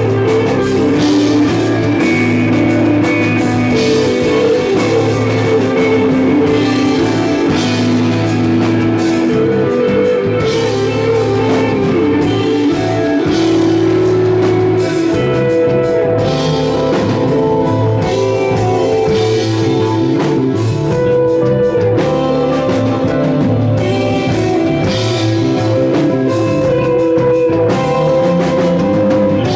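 Live psychedelic rock band playing: electric guitar and drum kit with cymbals, loud and steady.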